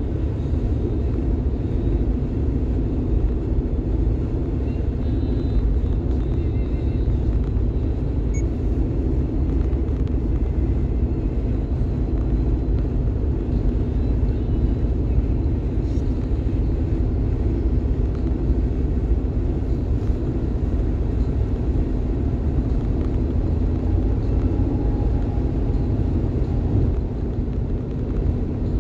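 Steady road noise inside a car's cabin at highway speed: an even, low rumble of tyres and engine that does not change.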